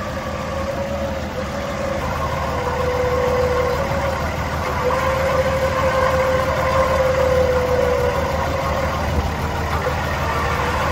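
Off-road 4x4's engine running at idle, with a steady high whine over it that wavers slightly in pitch and drops out briefly now and then.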